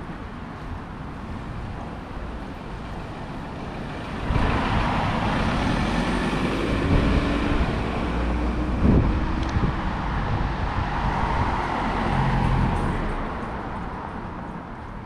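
Street traffic: a motor vehicle passes close by. Its engine noise rises sharply about four seconds in, holds for several seconds, and fades away near the end.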